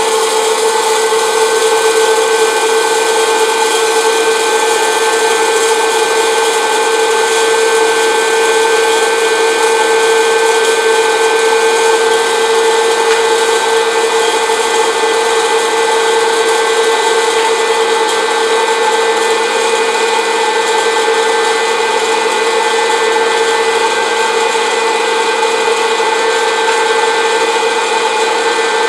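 Orville Redenbacher's hot air popcorn popper running, its fan motor blowing steadily with a constant whine and no popping.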